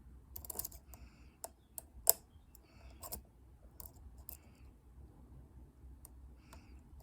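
Faint, irregular small metallic clicks and ticks of a pick working the pins inside a dimple lock cylinder, with one sharper click about two seconds in and fewer clicks in the second half.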